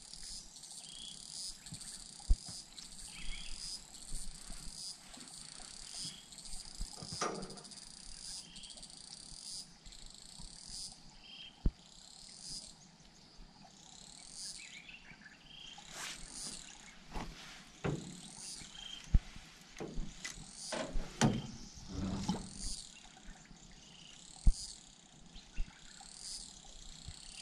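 High-pitched chirping calls repeating about once a second from a small animal, with scattered light knocks and clicks.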